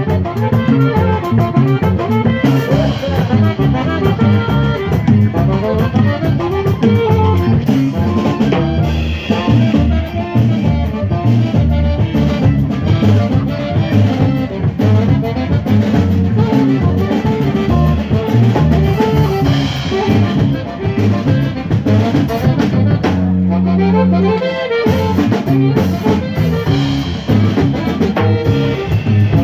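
Live band playing dance music, with saxophone and drum kit keeping a steady beat.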